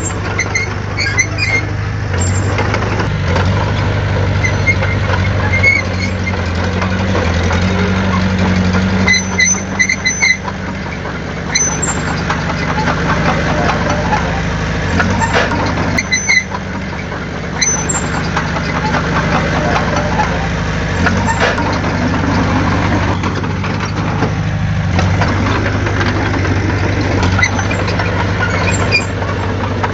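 Heavy diesel engine of earthmoving machinery running steadily, with brief high metallic squeaks now and then.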